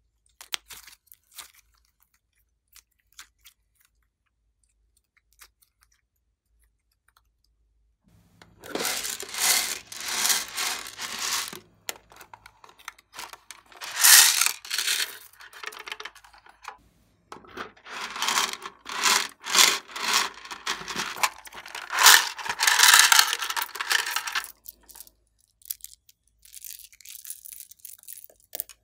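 Small plastic charms and beads tipped and shaken out of a plastic box into a glass dish of slime, rattling in several loud bursts through the second half, after some seconds of only faint clicks.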